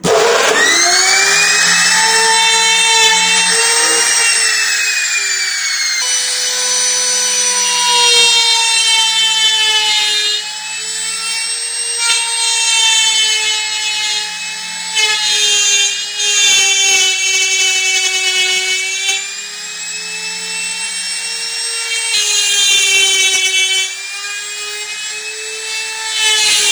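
Handheld power tool cutting a 7-inch circular hole in a speaker box panel. The motor runs with a steady high whine, and its pitch and loudness sag and recover several times as the cut loads it.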